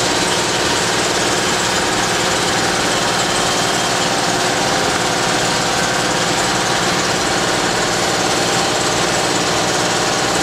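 A machine motor running steadily in the shop: a constant hum with a hiss over it, unchanging in level and pitch.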